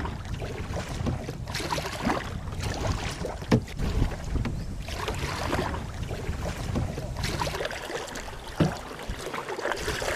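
Canoe paddles dipping and swishing through calm river water in repeated strokes, with a few sharp knocks. Wind buffets the microphone throughout.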